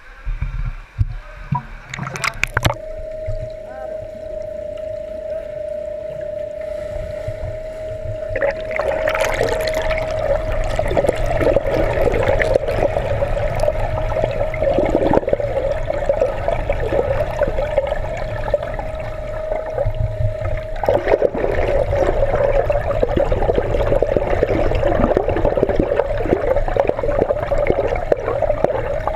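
Swimming-pool water heard through an underwater camera as a swimmer swims butterfly past: muffled splashing and churning that grows louder and busier from about eight seconds in. A steady hum runs under it, with a few sharp clicks near the start.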